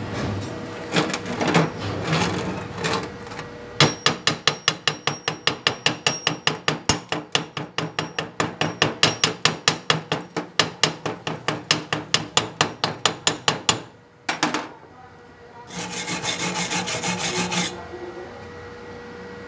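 Slag being cleaned off a freshly laid stick weld bead on steel: quick, even strokes of a hand tool on the metal, about four a second, for about ten seconds. A short burst of scrubbing follows near the end.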